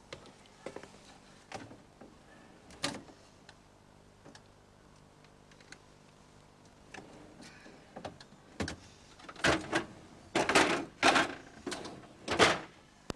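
Knocks and clatters of someone rummaging at a stainless-steel fridge, its door and contents bumping: a few scattered knocks, then a run of louder clatters in the last few seconds.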